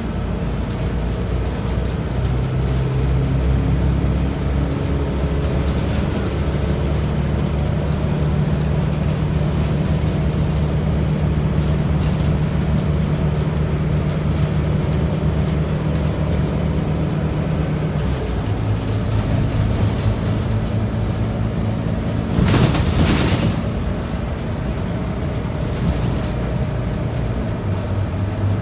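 Scania DC9 9-litre six-cylinder diesel of a Scania K94UB bus under way, heard from inside the cabin over road noise; the engine note climbs a few seconds in, holds steady, then drops about two-thirds of the way through. A sharp hiss of air lasting about a second is the loudest sound, near the end.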